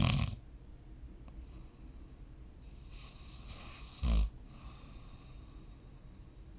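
A sleeping person snoring. A loud snore comes right at the start, then a breathy intake of air that ends in a short, low snore about four seconds in.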